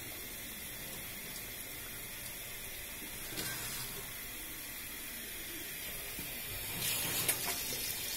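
Tap water running into a copper pipe of a Buderus boiler heat exchanger and through it into a sink, a steady splashing hiss, as the exchanger is rinsed out after its hydrochloric-acid cleaning. A short louder stretch with a few clicks comes near the end.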